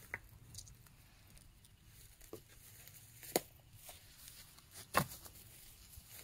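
Plastic wrap being handled and crinkled at the bottom of a plastic-wrap shelter: a few short, sharp crackles, the loudest about three and a half and five seconds in, with quiet between.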